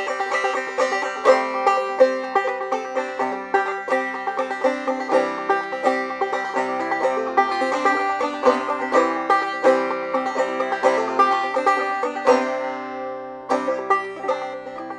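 Five-string banjo played clawhammer style, a steady stream of quick plucked notes in an old-time tune, with a chord left ringing for a moment about thirteen seconds in before the picking resumes.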